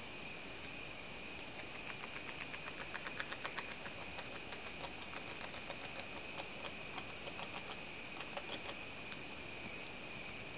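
Beaver chewing: a run of quick, crisp clicks, about five a second, starting a couple of seconds in, then slowing and fading near the end, over a steady hiss.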